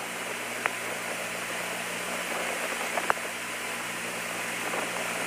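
Steady hiss and static of the Apollo 16 air-to-ground radio link between transmissions, over a low steady hum, with two short clicks, one under a second in and a louder one about three seconds in.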